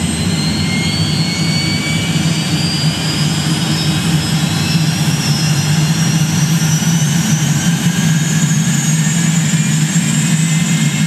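Small jet engine running on the ground in a stationary Boeing Loyal Wingman uncrewed aircraft. A deep steady hum sits under a high turbine whine that slowly rises in pitch.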